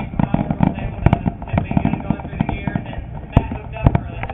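Fireworks going off in a rapid series of sharp bangs and crackles, several a second, some louder reports standing out near the end.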